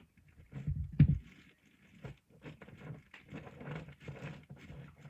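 Rummaging through bedding and plush toys: a couple of soft, heavy thumps about a second in, then irregular rustling and shuffling.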